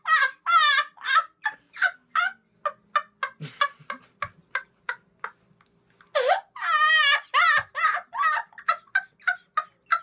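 A boy laughing hysterically: rapid high-pitched laughter in quick pulses of about four or five a second, with two long wavering squeals, about half a second in and around six seconds in, and a short lull between them.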